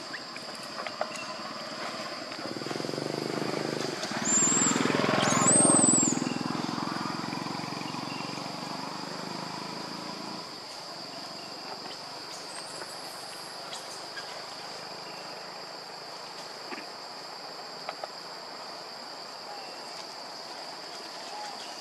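Insects droning in the forest with a steady high buzz. In the first half a low rumble swells and fades, with two short high chirps near its loudest point.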